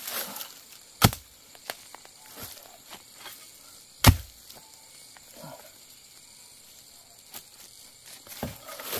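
Two hard chops about three seconds apart as a blade cuts through wild bamboo shoots, with a few lighter knocks and rustling in between.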